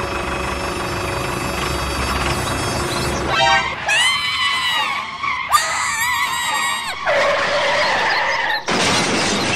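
A tractor engine sound effect, running steadily for about three seconds, is dubbed onto the toy tractor. It gives way to a string of short sliding tones and, near the end, a noisy burst.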